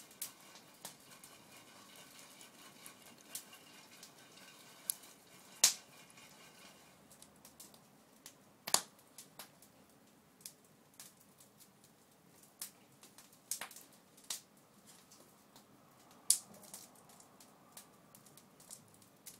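Open wood fire under a pan of roasting chestnuts, crackling with irregular sharp pops, three of them louder than the rest.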